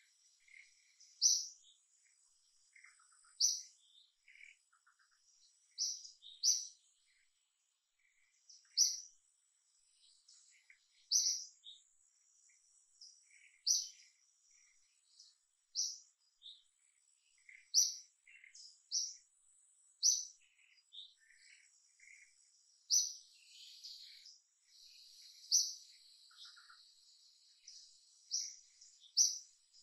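Songbird repeating a short high chirp about every two to three seconds, with fainter chirps from other birds in between.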